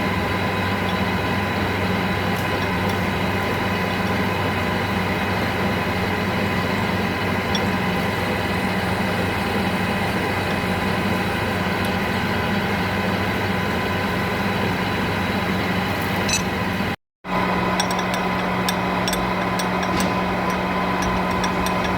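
Manual lathe running with a steady mechanical hum. The sound cuts out suddenly for a moment, then the hum resumes in a slightly different tone, with a few light clicks.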